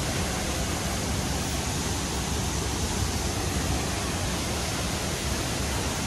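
A waterfall rushing: a steady, even wash of falling water with a low rumble beneath it.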